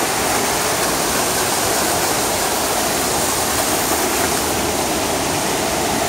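Steady loud rush of falling and fast-flowing water: a small cascade splashing into a basin and a swift river.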